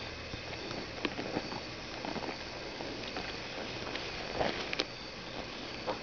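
Soft rustling and scattered light taps of fur and blanket fabric brushing against a handheld camera's microphone, over a steady background hum. The loudest cluster of taps comes a little past the middle.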